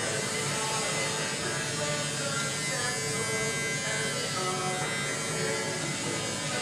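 Electric hair clippers buzzing steadily while cutting a man's hair.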